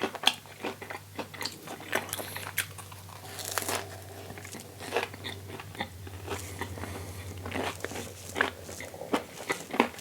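Close-up eating sounds of a vegan sausage-and-cheese McMuffin on a toasted English muffin: crisp biting and crunchy chewing with many short crackles, over a low steady hum.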